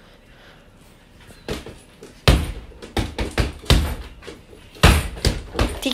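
An irregular run of thumps and slaps from people play-fighting and hitting each other, starting about a second and a half in, with the heaviest blows near the middle and end.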